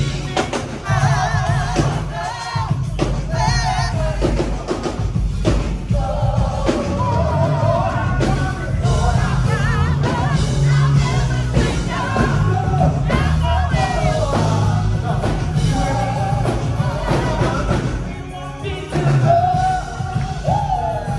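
Rock music with a singer: a vocalist singing with vibrato over a band with drum kit.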